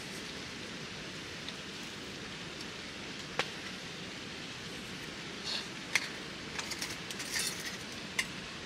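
Scattered light clinks and taps of metal camping cookware being handled, a few single ones and a quick cluster near the end, over a steady background hiss.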